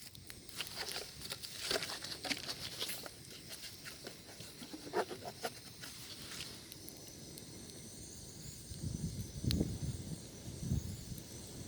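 Wood bonfire crackling, with scattered sharp pops. Low rumbling noise joins for the last few seconds.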